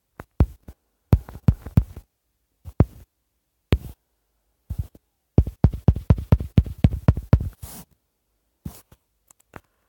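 Fingertip taps on a phone's touchscreen, picked up as dull thumps by the phone's own microphone: a few single taps, then a quick run of about five taps a second for a couple of seconds, with dead silence in between.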